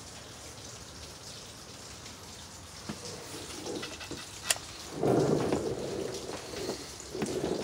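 Steady crackly hiss with a few sharp clicks, then a louder stretch of rustling and scraping about five seconds in and again near the end, as a handheld phone is moved about under a truck.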